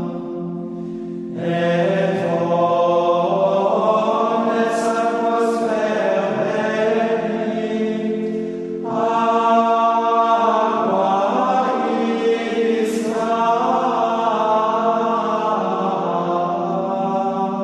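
Liturgical plainchant sung in long phrases over a steady held chord. The voices come in about a second in and start a new phrase near the middle.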